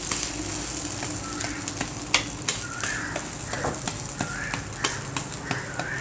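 Egg and Maggi-noodle omelette sizzling in oil on a hot iron dosa tawa, with a steel spatula scraping and pressing on it in sharp clicks and scrapes.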